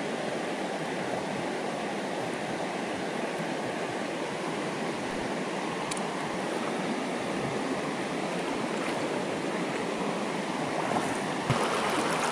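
Shallow river water rushing over rocks in a riffle, a steady roar. Near the end it gets louder and brighter, as fast water running along a rock ledge is close by.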